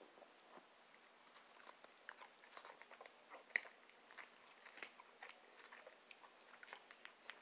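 Faint, irregular mouth clicks and smacks, like lips and tongue moving or light chewing, close to a phone microphone. One sharper click comes about three and a half seconds in.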